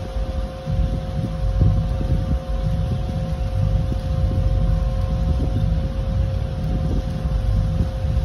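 Steady low mechanical hum and rumble with a constant mid-pitched tone, under faint rustling of a small paper packet being handled.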